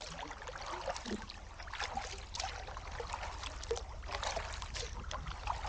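Canoe paddle strokes through calm water, with the splash and drip of the blade coming in and out of the water in an uneven rhythm.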